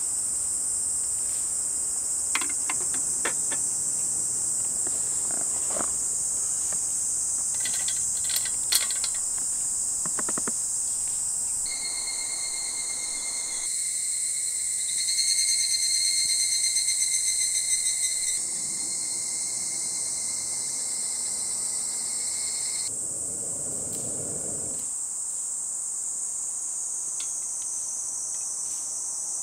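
Insects trilling, a steady high-pitched chorus throughout, with a few faint clicks in the first third. Past the middle a second, lower insect buzz joins, pulsing and at its loudest for a few seconds, then cuts off suddenly.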